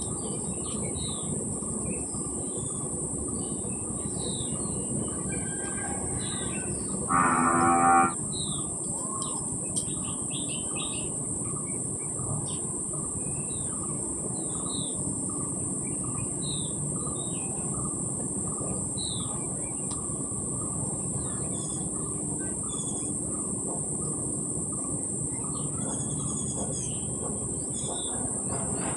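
Birds chirping over a steady high insect drone, with one low, drawn-out animal call lasting about a second about a quarter of the way in, the loudest sound.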